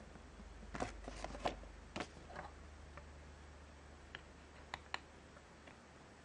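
Small hard plastic clicks and taps of LEGO minifigure pieces being handled and set on a wooden table: a quick cluster of clicks about a second in, a short rustle, then a few single clicks near the end.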